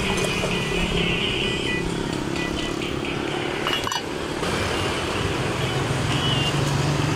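Steady street traffic noise with motorcycle and car engines running by.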